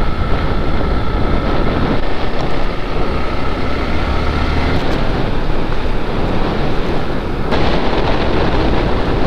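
Wind rushing over the action camera's microphone at riding speed, with the Suzuki Gixxer motorcycle's engine running under it. The hiss turns sharper about seven and a half seconds in.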